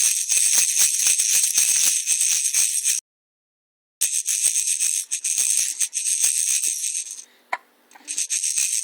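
A rattle shaken fast and continuously, a dense rustling jingle, cutting out completely for about a second around three seconds in and dropping away briefly near the end.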